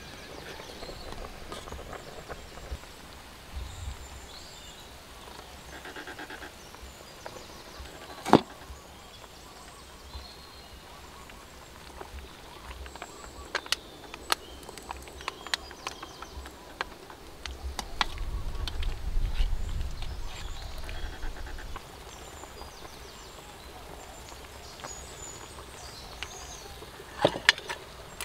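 Scattered clinks of a metal ladle and spoon against a metal wok and its metal lid: one sharp clink about eight seconds in, a run of lighter clinks a few seconds later, and a quick double tap near the end. Faint outdoor background noise lies underneath.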